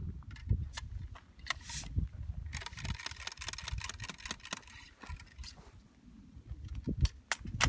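Light clicks, taps and scrapes of a .54 calibre Lyman flintlock rifle being reloaded at the muzzle with its ramrod, with a quick run of rapid ticking a few seconds in.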